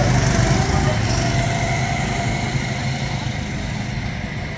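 Go-kart engines running as karts pass and pull away along the track, the hum loudest at first and slowly fading.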